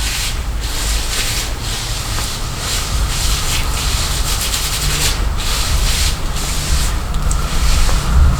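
Low rumble of strong wind gusting outside, with repeated rubbing strokes close to the microphone about twice a second.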